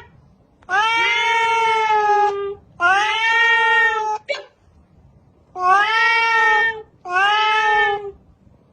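Domestic cat meowing loudly four times in a row, each meow a long drawn-out call of a second or more.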